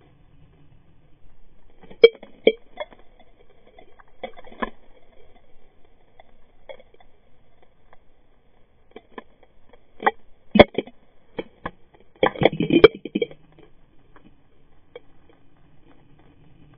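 Sharp clicks and knocks, heard underwater through a camera's housing, come in irregular clusters. The loudest come about two seconds in and again around ten to thirteen seconds in.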